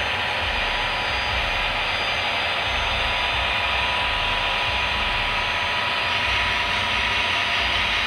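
Model railroad freight cars rolling past close by on the track: a steady whirring hiss of wheels on rails, with no change in level as the last cars and the caboose go by.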